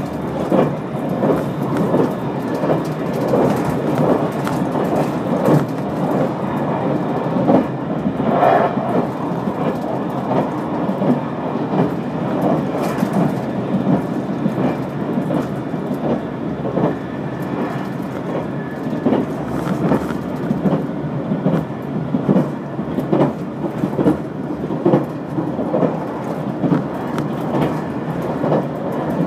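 Running noise of a limited express train heard from inside a passenger car: a steady rumble with frequent irregular clicks and knocks from the wheels on the track.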